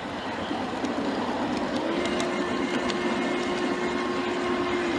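G-scale model freight train rolling along garden track, heard from a car riding in the train: a steady rolling rumble with the wheels clicking now and then over rail joints. About two seconds in, a steady tone joins and holds until near the end.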